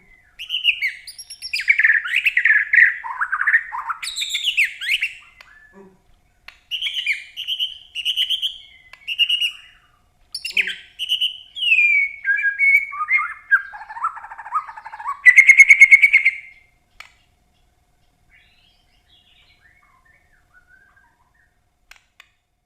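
A caged songbird singing in quick, varied phrases of gliding chirps with short pauses between them, including a harsh buzzy note near the end of its song. The singing stops about three-quarters of the way through.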